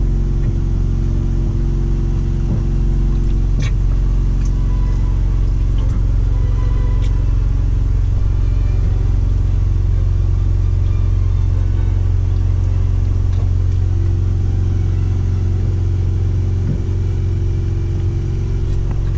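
Semi-truck diesel engine idling steadily, heard from inside the cab as a constant low drone. A single sharp click comes about three and a half seconds in.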